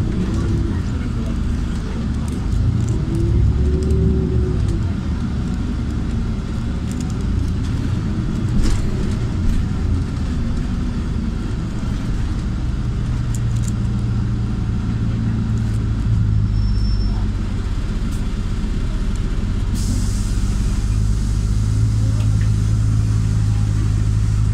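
Cabin sound of a LiAZ 5292.67 city bus under way, its compressed-natural-gas YaMZ-53624 engine giving a steady low drone with road noise. About 20 seconds in, a high hiss starts suddenly and carries on.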